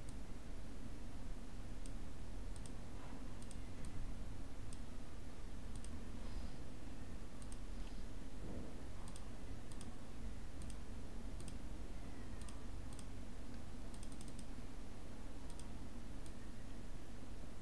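Computer mouse clicking now and then, single clicks and quick pairs, over a steady low hum of room noise.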